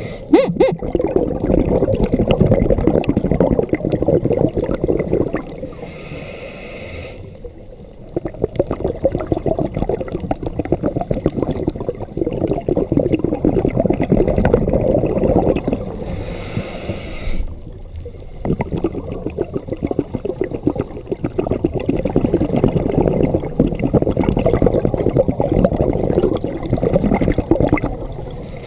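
Scuba diver breathing through a regulator underwater: long, bubbling exhalations broken twice by a short hissing inhalation, about ten seconds apart.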